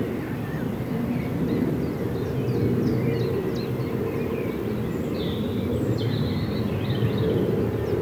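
Small birds chirping and calling, thin and scattered, over a steady low rumble that is the loudest sound.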